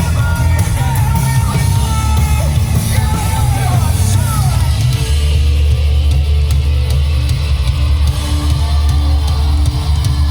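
Loud live rock band playing a punk-style song, with heavy bass and drums under sung and shouted vocals.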